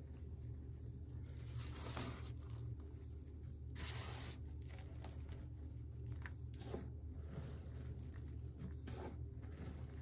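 Reformed gym chalk squeezed and crumbled between the fingers: soft, gritty crunching and crackling as the clumps break apart and powder falls, in irregular bursts every second or two. A steady low hum runs underneath.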